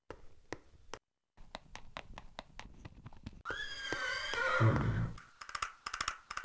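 A horse whinnies once, about halfway through: a pitched, wavering neigh of about a second and a half that ends in a low rumble. It sits over a run of regular sharp knocks, with a cluster of quick clicks after it.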